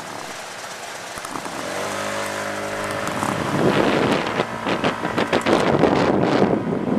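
A vehicle engine runs with a steady hum for a second or two. About three and a half seconds in, loud, gusty wind noise on the microphone takes over as the camera moves off.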